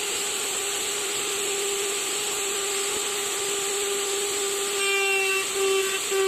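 Electric power tool running steadily on wood with a constant whine. About five seconds in it grows louder and higher tones join in.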